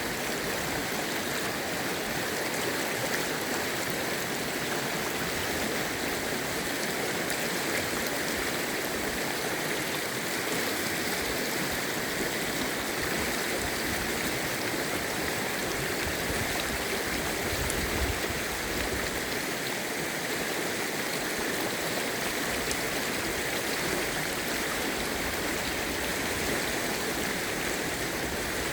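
Mountain creek water rushing and splashing over rocks in a steady, even flow, recorded close up.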